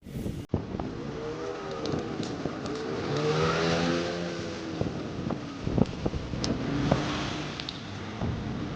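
A motor vehicle engine running, its pitch rising and falling, with several sharp clicks over it.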